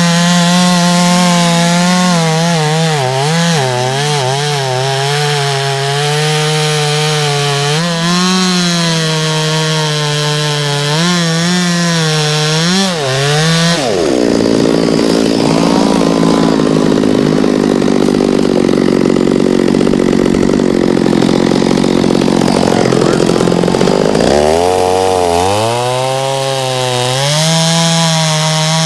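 Small chainsaw with an 18-inch bar running at high revs, bogging down about halfway through as it bites into a thick trunk section and cuts through it for about ten seconds, then revving back up as the cut finishes.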